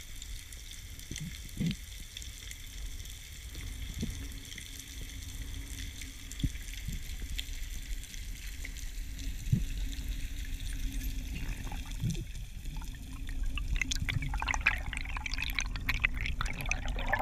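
Underwater water noise recorded through a camera housing: a steady low rumble with a faint hum and a few soft knocks. About three-quarters of the way through it turns into a louder crackling rush of water.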